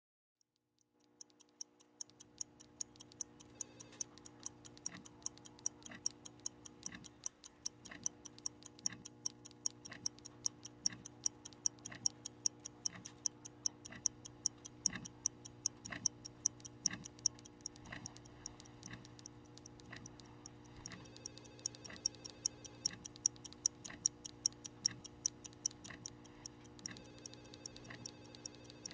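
Clock ticking steadily, a heavier tick about once a second with quicker, lighter ticks between, over a low sustained drone. It starts about a second in.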